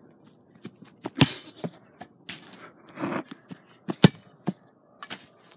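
Sharp thumps of a soccer ball being kicked on grass, the loudest about a second in and another about four seconds in, among light footsteps and rustling.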